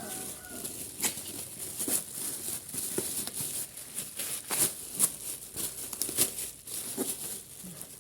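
A parcel's wrapping crinkling and tearing as it is opened by hand, in irregular rustles and sharp crackles.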